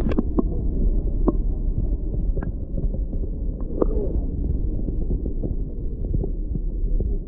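Muffled underwater sound from a camera submerged in a lake: a dull, steady low rumble of moving water, with a scattering of short sharp ticks.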